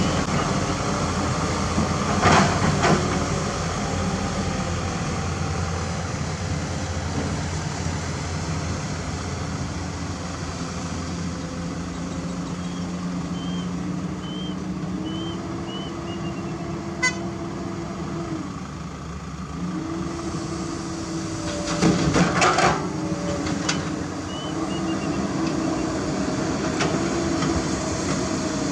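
Diesel engines of a Komatsu PC200 excavator and a dump truck running, the engine note stepping up and down as they work. Bursts of knocks come about two seconds in and again about twenty-two seconds in.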